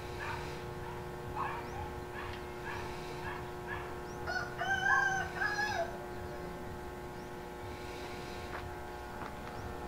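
A rooster crowing once, a call of about a second and a half midway through, after several shorter calls. A steady hum runs underneath.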